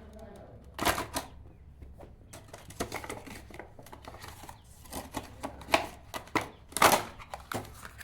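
Hands handling plastic packaging and parts: scattered clicks and rustles, with louder clacks about a second in and near seven seconds.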